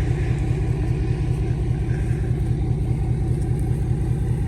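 Vehicle engine running steadily, a low, evenly pulsing rumble.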